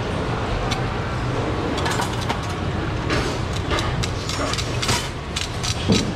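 A large fish knife cutting along the back of a yellowfin tuna, crunching through the bony fin rays and spine edge in a run of short sharp clicks and cracks, thickest a few seconds in, over a steady low background rumble.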